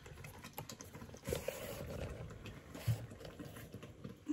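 Thick apple pie filling simmering and bubbling softly in a pot, with scattered light clicks and one sharper knock about three seconds in.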